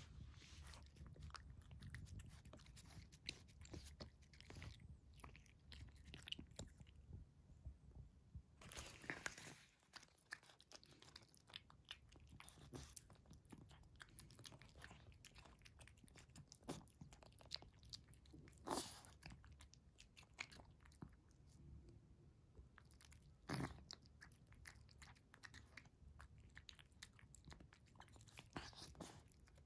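A cat eating flaked fish from a paper plate up close: faint, quick, irregular chewing and lapping clicks, with a few louder smacks along the way.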